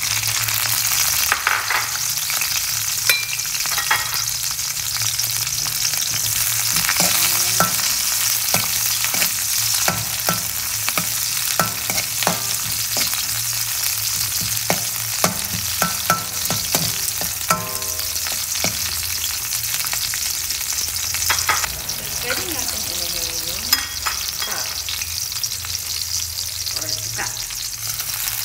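Sliced onion and garlic sizzling in hot oil in a metal wok, the sizzle jumping up as the onion goes in at the start. Through the middle, a metal spoon scrapes and clicks against the wok as the onion is stirred.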